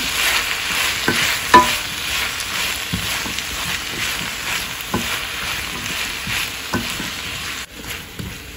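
Diced chayote with onion and tomato sizzling in oil in a stainless steel kadai, stirred with a wooden spatula that knocks against the pan now and then, loudest about one and a half seconds in. The sizzle drops off suddenly near the end.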